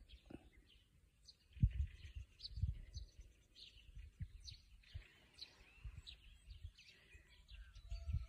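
Sparrows and other small birds chirping in short, repeated calls. Irregular low thumps sound on the microphone, loudest about a second and a half to three seconds in.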